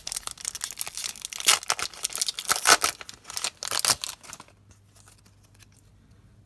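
Foil Yu-Gi-Oh booster pack wrapper being torn open and crinkled in the hands: a dense run of crackling that stops about four seconds in.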